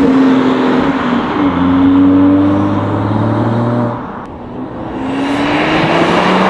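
BMW X3 35i's turbocharged N55 inline-six, fitted with a front-mount cold air intake, accelerating under load. Its pitch climbs, breaks off briefly about four seconds in as at a gear change, and then climbs again, with a high thin whistle rising near the end.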